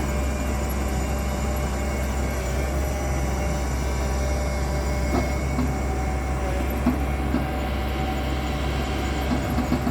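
Tata Hitachi excavator's diesel engine running steadily with a low rumble, with a few short squeaks in the second half.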